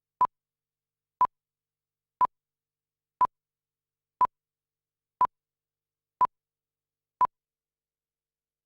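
Eight short electronic beeps, all at the same pitch, evenly spaced one per second, with dead silence between them.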